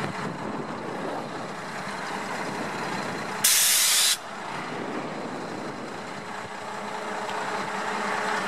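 A sudden loud blast of air hiss, under a second long, about three and a half seconds in, typical of a truck's air brake system venting. Under it is the steady sound of a truck running.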